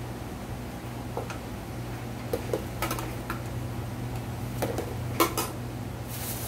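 A metal spoon clinking and scraping against a plate in a scatter of separate strikes, the loudest about five seconds in, over a steady low hum.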